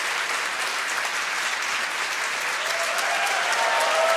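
Crowd applauding and cheering steadily, a launch-webcast audience celebrating main engine cutoff and stage separation.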